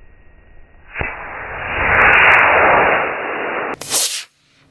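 Model rocket motor igniting about a second in and burning with a loud rushing hiss for about three seconds as the Estes rocket lifts off its launch pad, then a short sharper burst of noise near the end before the sound cuts off suddenly.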